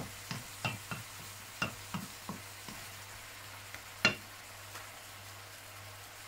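A wooden spatula scrapes and knocks against a steel wok as bell pepper and pork are stir-fried over a faint sizzle. Quick strokes come in the first few seconds, with one louder knock about four seconds in, then the stirring stops.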